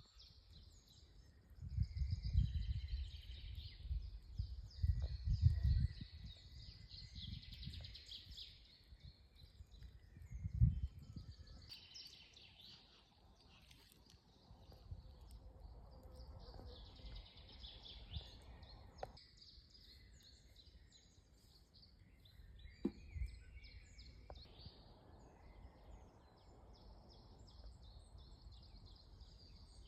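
Several wild birds singing and chirping in woodland, with overlapping trills and calls throughout. Bursts of low microphone rumble in the first few seconds and again about ten seconds in, and a couple of sharp clicks near the end.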